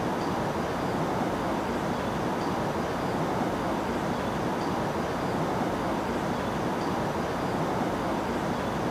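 Steady rushing noise at an even level, with no speech or music.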